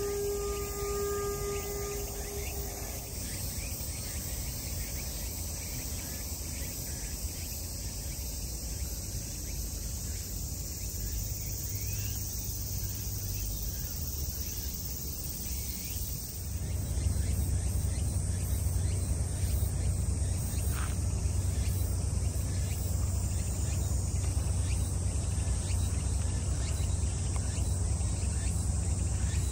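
Cicadas buzzing steadily in the garden trees in a dense summer chorus. A soft held tone ends about three seconds in, and about halfway through a low rumble comes in and stays.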